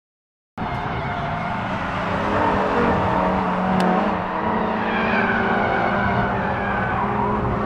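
Track-day cars running hard on a race circuit: engines at high revs with some tyre squeal, cutting in suddenly about half a second in.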